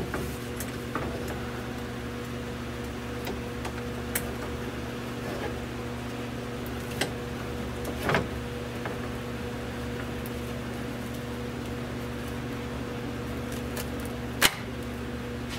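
A steady low machine hum with a few sharp clicks and taps scattered through it, the loudest about 14 seconds in.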